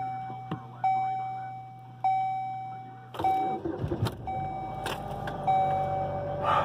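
Chevy Malibu's dashboard warning chime dinging about once a second, then the engine cranks and catches about three seconds in and settles into running while the chime keeps sounding.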